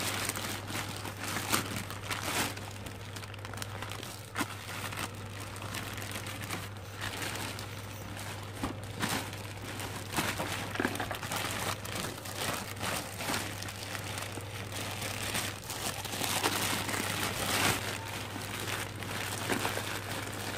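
Thin black plastic bag crinkling and rustling in irregular bursts as hands pull and fold it open around a cardboard parcel.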